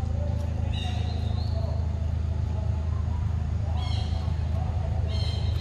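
Short, high bird chirps, each stepping up in pitch, come a few times over a steady low hum.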